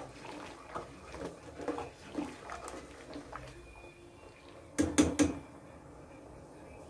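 A steel spoon stirring and scraping through kheer in a stainless steel pan, with small scattered clinks, then three quick, loud metal clinks of the spoon against the pan about five seconds in. The stirring dissolves the freshly added sugar and keeps the milk from catching on the bottom.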